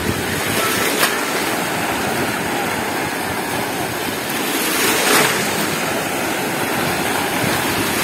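Small Black Sea waves breaking and washing over the shallows, with splashing as legs wade through the surf. A louder rush of water comes about five seconds in.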